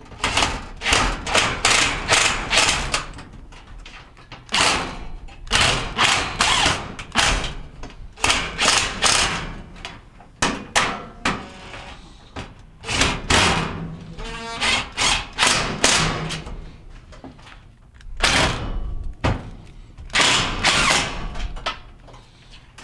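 Cordless drill driving sheet-metal screws into a gas range's steel rear panel, in many short bursts grouped in clusters with pauses between screws.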